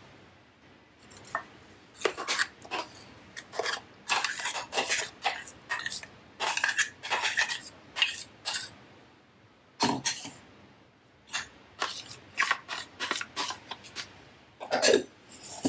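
A stainless-steel mixer-grinder jar knocking and scraping against a glass bowl as thick ground jackfruit paste is scraped out of it by hand. It comes as irregular runs of short clatters and scrapes, with a brief pause partway through.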